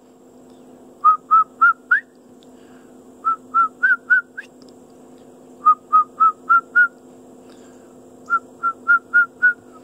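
A person whistling short, clear notes in four runs of four or five, about three notes a second, each run edging slightly higher in pitch.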